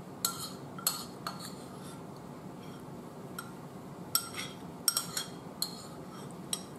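Metal spoon clinking and scraping against a bowl of chili, about nine short, ringing clinks spread unevenly through.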